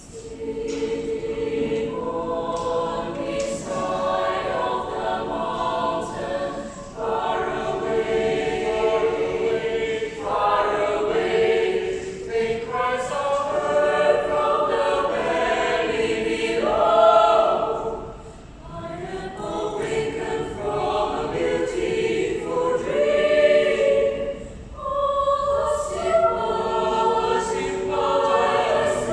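A choir singing unaccompanied in sustained, held phrases, with short breaks between them.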